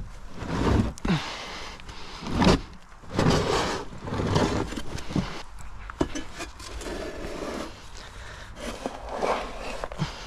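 Irregular scraping strokes of a long-handled scraper across a wooden droppings tray as old bedding and chicken droppings are loosened and scraped out, with a few sharp knocks of tool on wood between the strokes.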